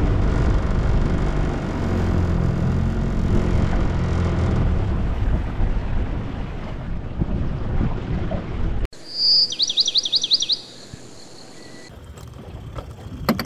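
A small aluminium boat's motor running steadily under way, cut off suddenly about nine seconds in. Then a bird gives a quick trill of about eight high sweeping notes, and a sharp knock on the boat comes near the end.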